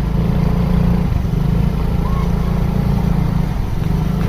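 Bus engine running, a steady low drone.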